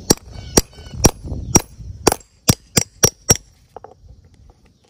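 Hammer striking a steel grommet-setting punch, about nine sharp blows with a brief metallic ring, coming faster toward the end. The punch is flaring and curling a grommet over its washer through a vinyl billboard tarp, set on a wood block.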